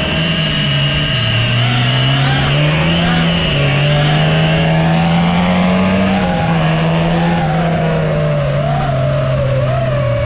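Race car engines revving hard, the pitch climbing in steps through the gears and dropping back about six seconds in. Over them runs the wavering whine of the FPV racing drone's motors and propellers.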